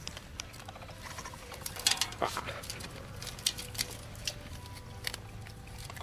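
Capybaras chewing and tugging at hay through a wire-mesh fence: irregular crisp crunching and clicking, thickest about two seconds in.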